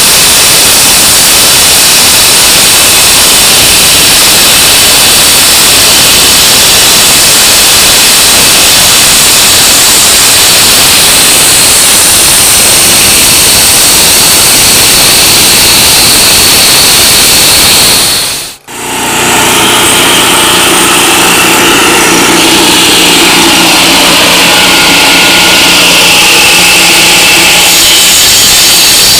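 Loud, harsh noise of heavy construction machinery working on a road cut. It cuts out abruptly about two-thirds of the way in, then comes back with a steady engine drone under it.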